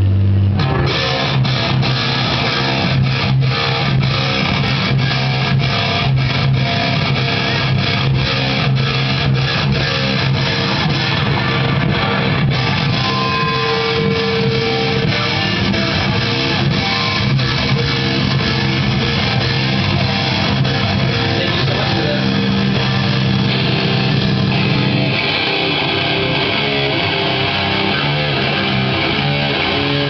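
Rock band playing live at loud volume during a sound check: electric guitars and bass guitar, with regular sharp hits through roughly the first twelve seconds.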